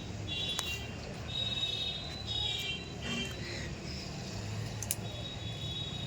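Pet parrots chirping: short high-pitched squeaky calls in several quick clusters, over a low steady hum.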